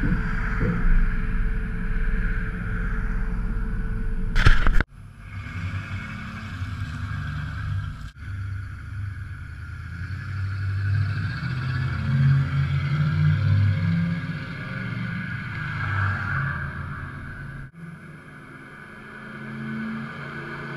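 1995 Ford F-150's 5.0 L (302) V8 with a straight-piped exhaust cutout setup, first a low steady rumble heard with wind on the microphone, then the truck driving past with a deep exhaust rumble that swells and fades. Other cars pass with tyre hiss later on.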